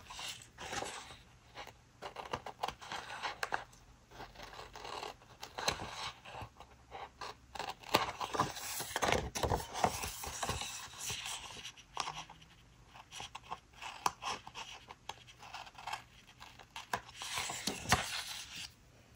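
Paper planner stickers being handled, peeled from their backing sheet and pressed onto a planner page: irregular scratchy rustles and small sharp clicks.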